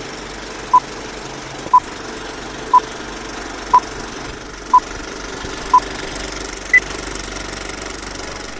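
Old-film countdown leader sound effect: a film projector runs with a steady rattle while a short beep sounds once a second, six at the same pitch and then a seventh, higher beep.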